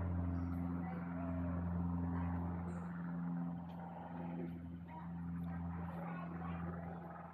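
A steady low mechanical drone, like a motor running, that swells and eases a little.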